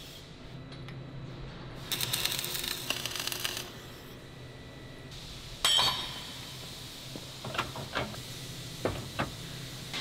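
About two seconds in, a tack weld's arc crackles for about a second and a half. Near six seconds comes one sharp metal clank that rings, then several lighter metallic clinks as steel parts and turnbuckle hardware are handled on a steel welding jig.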